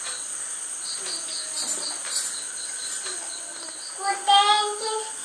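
A steady, high insect chirring runs throughout, with faint voices in the first few seconds. About four seconds in, a young girl's voice sings a loud, held, wavering note.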